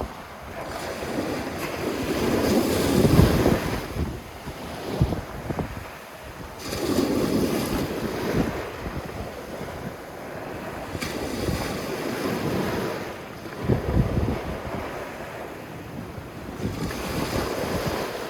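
Sea waves breaking and washing up a sand beach, each swelling and fading every four or five seconds, with wind buffeting the microphone.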